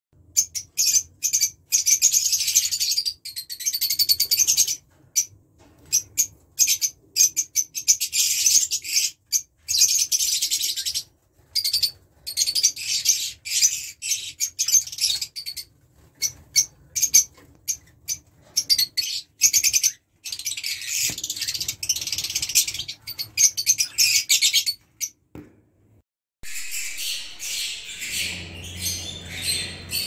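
Caged lovebirds chattering: rapid, high-pitched chirps in bursts of a few seconds with brief pauses between them. After a short break near the end, a denser chatter over a faint low hum.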